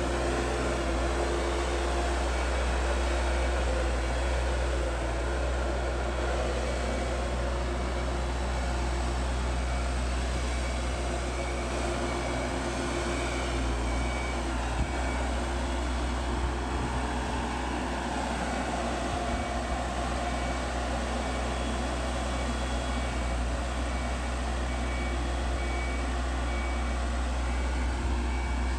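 Engine and hydraulics of an Ascom mobile boat travel lift running steadily with a strong low hum as the lift drives slowly, carrying a catamaran in its slings.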